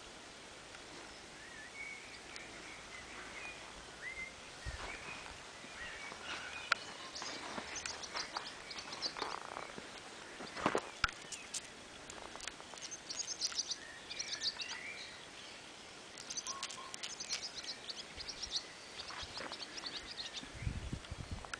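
Birds chirping and twittering on and off, with a sharp click about eleven seconds in and a few low thumps near the end.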